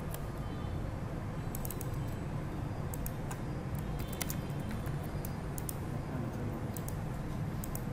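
Irregular clicks from typing on a computer keyboard, scattered over a steady low background hum.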